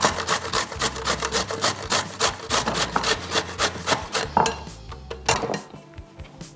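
Celeriac being shredded on a stainless-steel hand grater: quick, even rasping strokes, about five a second, that stop a little over four seconds in. Two knocks follow about a second apart.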